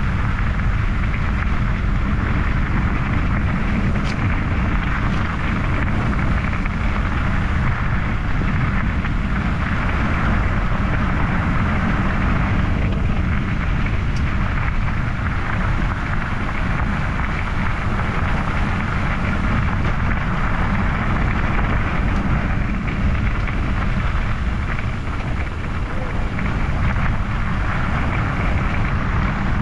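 Steady rushing wind noise on the microphone with rolling tyre noise, from a bicycle being ridden along a trail.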